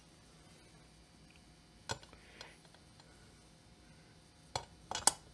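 Metal chainsaw engine parts clinking and knocking together on a workbench during crankcase assembly: one knock about two seconds in, then a quick cluster of clinks near the end, the last the loudest.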